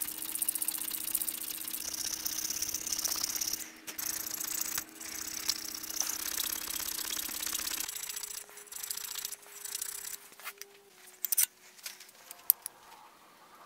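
Needle file rasping back and forth in rapid strokes in the tang slot of a metal knife guard clamped in a vise. The filing stops about ten seconds in, and a few light metal clinks follow as the guard is fitted onto the blade's tang.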